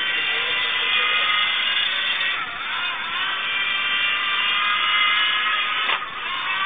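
Battery-powered 1983 Mattel Dragon Walker toy's small electric motor and gearbox whirring steadily as the toy walks. The whine dips briefly about two and a half seconds in, and there is a sharp click about six seconds in.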